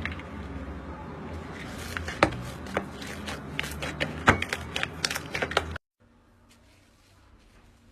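Slime being squeezed and poked by hand, making a run of sharp clicking pops that stops abruptly about six seconds in, leaving only faint background noise.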